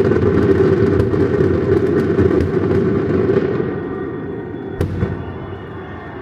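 Fireworks grand finale: a dense barrage of rapid bangs and crackles over a continuous rumble. It dies away about four seconds in, with one last sharp bang near the end.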